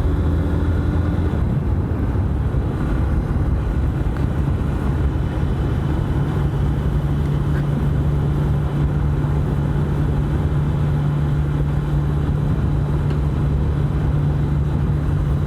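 Haojue Chopper Road 150's single-cylinder engine running at a steady cruising speed, a constant low drone with a rushing noise behind it. The rider puts the deeper, buzzing note down to the aluminium top box and its luggage rack vibrating.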